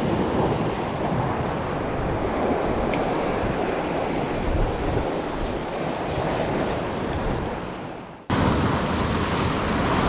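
Sea surf washing and breaking over shore rocks, with wind buffeting the microphone. The sound sinks and then cuts off abruptly about eight seconds in, coming straight back at full level.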